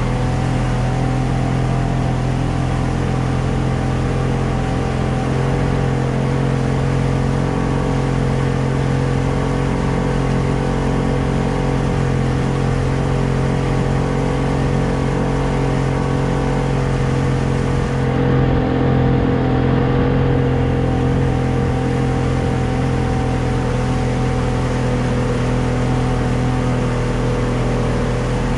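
Small motorboat's engine running steadily at low cruising speed, a constant low hum, its tone shifting briefly about two-thirds of the way through.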